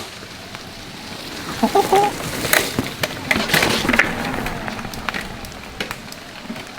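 Mountain bike riding along a wet dirt trail: tyres hissing over the ground with a run of sharp knocks and rattles from the bike over rough ground, busiest in the middle.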